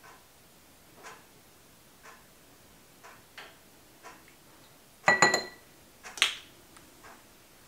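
Half a lemon twisted on a glass reamer juicer, making faint short scrapes about once a second. About five seconds in comes a louder glass clink with a brief ring, as the glass juicer knocks against a small glass bowl, and another knock about a second later.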